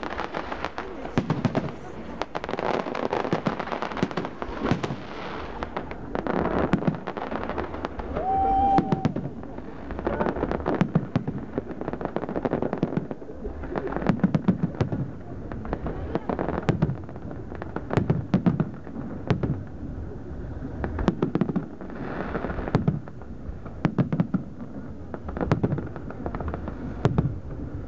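Aerial fireworks shells bursting overhead in a steady barrage of bangs and crackles.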